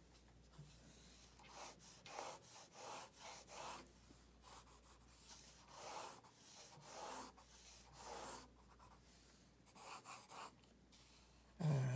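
Graphite pencil drawing long straight lines on paper: about ten scratchy strokes, each under a second, as the lines are drawn and gone over. A short low hum right at the end.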